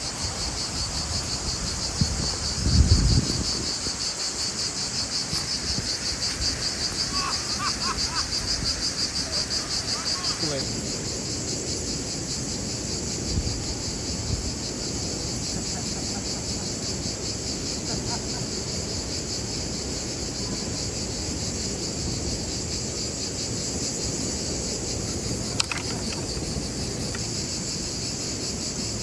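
A chorus of insects chirping in a dense, steady high-pitched drone that pulses rapidly at first, then evens out. A brief low thump comes about three seconds in.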